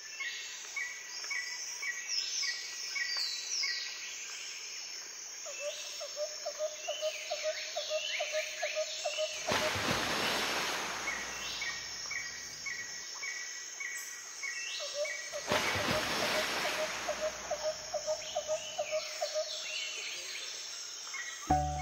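Birdsong: repeated short chirps, quick falling whistles and a fast trill, with two swells of rushing noise, each a few seconds long, starting about ten and sixteen seconds in.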